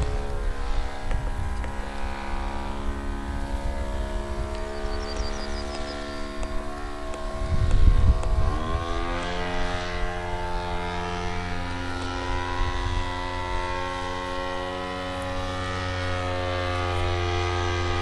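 Seagull Harrier RC model plane's SC 108 engine, turning a 14×8 propeller, running steadily in flight. About eight seconds in, after a brief low rumble, its pitch rises quickly as it revs up and then holds at the higher note.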